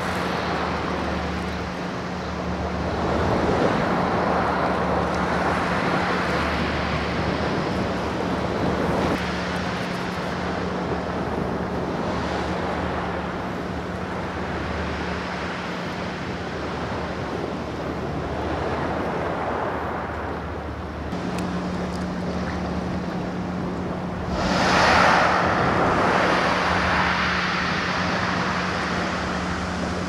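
Sea waves washing against a concrete pier, with wind on the microphone, swelling louder a few seconds in and again near the end. A steady low hum runs underneath.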